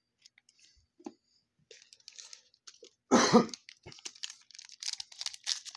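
A few faint clicks, then a single short cough about three seconds in, followed by quick crackling and crinkling of a foil trading-card pack wrapper being handled.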